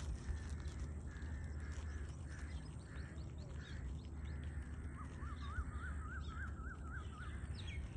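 Birds calling: a string of harsh calls about two a second, then from about five seconds in a quick run of short rising notes, over a steady low rumble.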